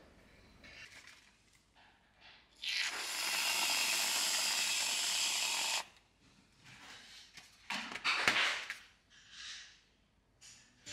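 Aerosol can of whipped cream spraying: a loud, steady hiss for about three seconds that cuts off sharply. A few short knocks and brief noises follow about two seconds later.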